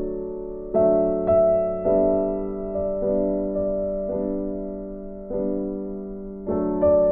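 Background piano music: slow, gentle chords, each struck and left to fade.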